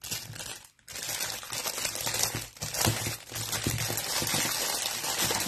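Clear plastic wrapping crinkling as it is handled and pulled off a pair of craft paper punches. A short crinkle, a brief pause a little before a second in, then continuous crinkling.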